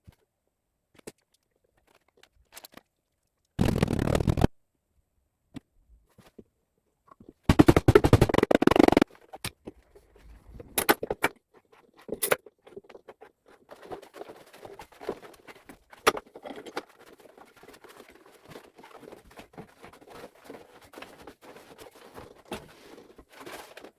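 Workshop handling sounds during a glue-up of oak panels: a few sharp clicks and knocks, a loud rushing burst about four seconds in, a rapid rattling run of clicks about eight seconds in, then faint steady scraping and crackling with small clicks.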